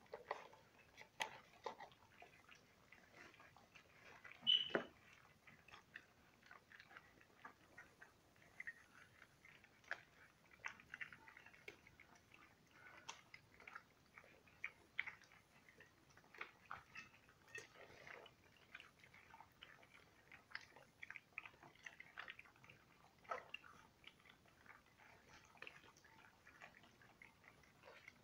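Malamute puppies lapping and smacking as they eat soft rice pudding and puppy milk from a shared dish: a faint, irregular run of wet clicks and smacks. There is one louder, sharper sound with a brief high squeak about four and a half seconds in.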